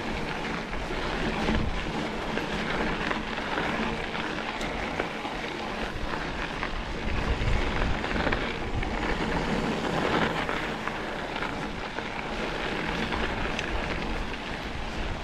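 Mountain bike riding along a dirt singletrack: a steady, unbroken rush of wind on the microphone mixed with the rumble of the tyres on the dirt, swelling and dipping with the trail.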